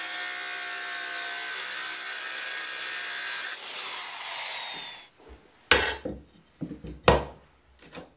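Circular saw with an abrasive masonry blade cutting a ceramic tile, a loud steady grinding whine. About three and a half seconds in, the cut ends and the motor winds down with a falling whine. Then a few sharp knocks, the two loudest about a second and a half apart.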